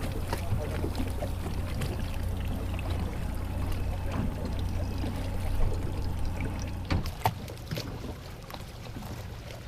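Motorboat under way: a steady low engine hum with water sloshing against the hull, a couple of sharp knocks about seven seconds in, after which it gets a little quieter.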